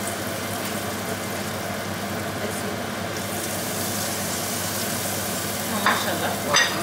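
Handesh batter of jaggery frying in hot oil in an iron karahi, a steady sizzle. Two brief, louder sounds come near the end.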